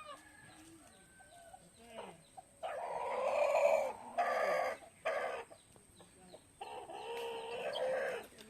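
Chickens: a rooster crowing twice, starting about two and a half seconds in and again near the end, with faint clucking between.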